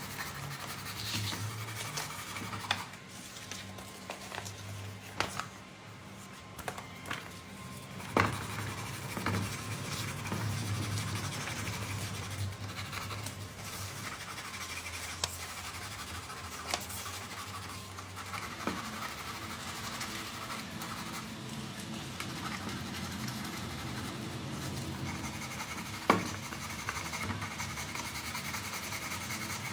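Quiet background music under occasional sharp clicks and knocks, two of them louder, about a third of the way in and near the end.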